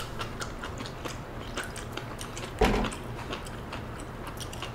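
Close-up eating sounds of malatang being eaten: chewing, with many small scattered clicks, and one louder thump about two and a half seconds in.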